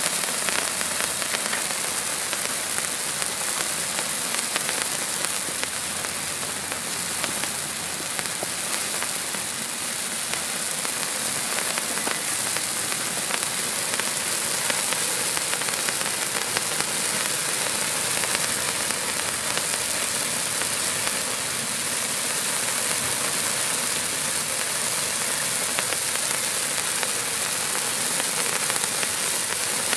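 Three Hot Fireworks Pyro Torch sparkling torches burning together, a steady sizzling hiss as they spray silver sparks.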